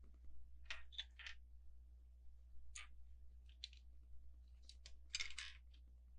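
Small plastic LEGO pieces clicking and rattling as they are handled, in brief clusters: three clicks about a second in, a few more around three to four seconds, and a longer rattle near the end.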